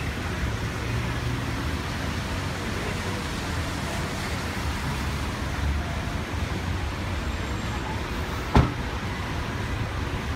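Steady road-traffic noise with a low rumble, and one sharp knock about eight and a half seconds in.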